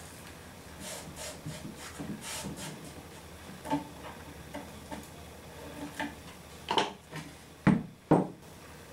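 Handling sounds while fitting adhesive foam sealing tape to a plywood plate: rustling of the foam strip and its backing, a scissor snip, then a few thuds near the end as the plate is set down and pressed on the wooden workbench.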